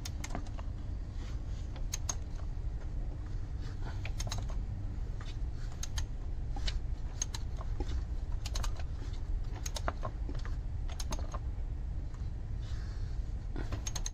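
Irregular light clicks and taps, a few a second, from turning a 2.0 TFSI engine over by hand to bring cylinder 4's piston up to top dead center, over a steady low rumble.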